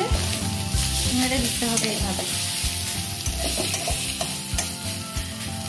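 Mashed cauliflower-stalk paste sizzling in a metal pan while a steel spatula stirs and scrapes it across the pan's surface, with a steady frying hiss and irregular scraping clicks.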